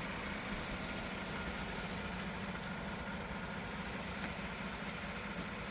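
A vehicle engine idling steadily under an even hiss.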